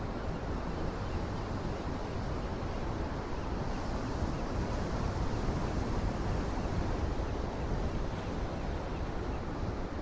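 Ocean surf washing over rocks along the shore: a steady rush of waves that swells slightly near the middle.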